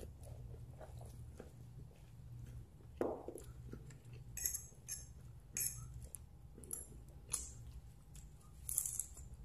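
Crisp lettuce leaf being bitten and chewed close to the microphone: a series of short, crisp crunches, most of them in the second half.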